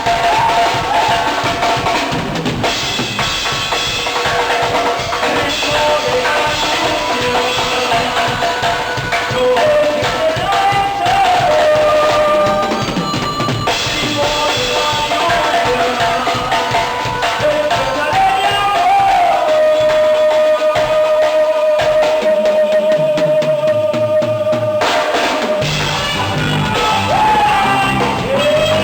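Duranguense music playing an instrumental passage: a driving drum beat under a melody line. About two-thirds of the way through, one long note is held while the low drums briefly drop out, then the beat comes back in.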